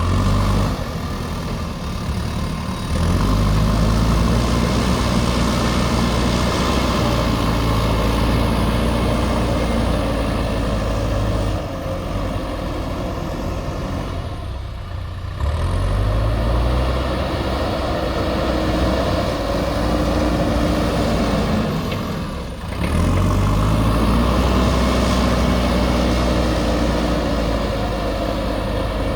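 JCB backhoe loader's diesel engine working hard, its revs rising sharply three times and holding high, dropping back briefly in between.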